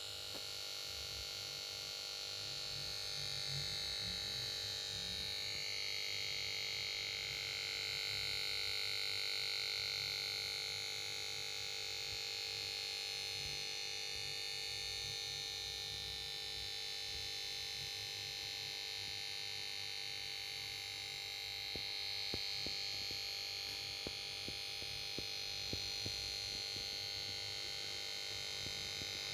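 Power supply board of a Samsung PS42A410C1XBT plasma TV making a steady, high-pitched electronic whine over a low hum. The whine drifts a little in pitch in the first few seconds, and a few light ticks come near the end. It is the noise the set makes when it fails to start: a fault on the power board.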